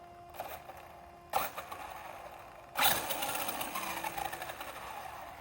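Electric motor of an RC monster truck whirring in short throttle bursts, the biggest about three seconds in, over a faint steady whine.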